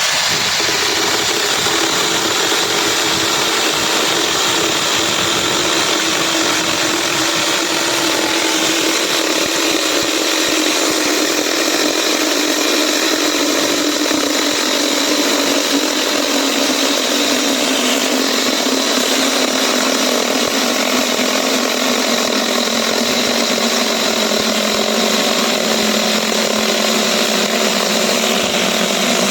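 Small battery-powered mini chainsaw running continuously with a steady whine, starting suddenly and holding the same level throughout, its pitch sinking slightly over the stretch.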